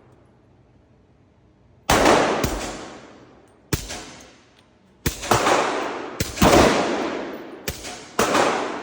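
Suppressed rifle fire: after a quiet first two seconds, about a dozen shots at an uneven pace, some in quick pairs, each followed by a long echo dying away.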